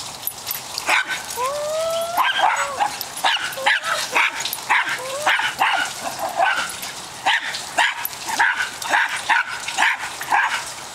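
Small dogs barking and yipping in short, rapidly repeated calls, with a rising whine about two seconds in.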